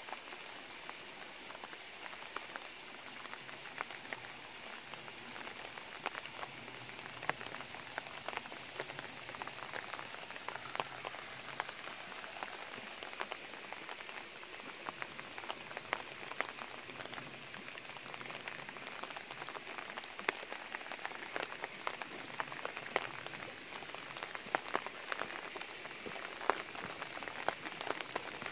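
Light, steady rain falling, with irregular drops ticking sharply over the hiss; the ticks come more often in the last third.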